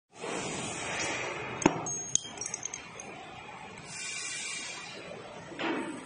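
Aluminium hydraulic hose crimper being handled as its head is opened and the crimping dies are fitted: a sharp metal click about one and a half seconds in, a second click, then a short run of light metallic clinks with a brief high ring, amid handling and rubbing noise.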